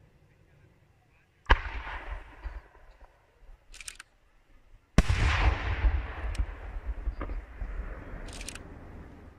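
Two aerial firework shells bursting, one about a second and a half in and a louder one about five seconds in, each a sharp bang followed by a long rolling echo. Two brief high hisses come between the bangs and near the end.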